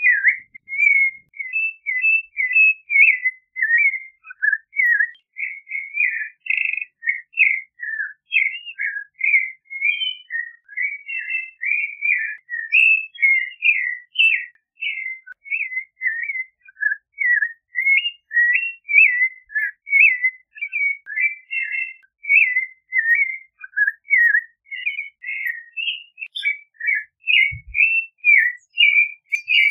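Clay-colored thrush (Turdus grayi) singing: an unbroken run of short whistled notes and slurred phrases that rise and fall, several a second.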